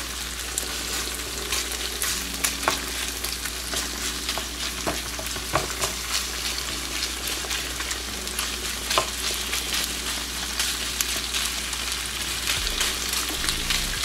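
Beef chunks sizzling in a frying pan while being stirred with a wooden spoon: a steady frying hiss with many scattered sharp pops.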